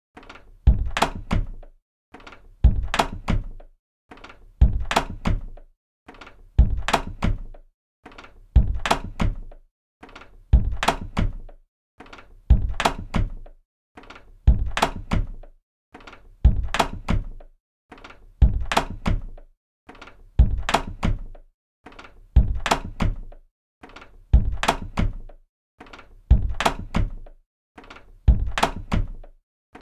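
A door being shut, over and over, about once every two seconds: each time a solid thunk with the latch clicking, dying away quickly.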